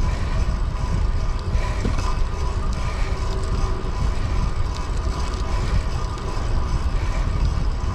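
Wind buffeting the microphone of a bicycle rider's camera during a fixed-gear ride into a headwind: a steady, gusting low rumble.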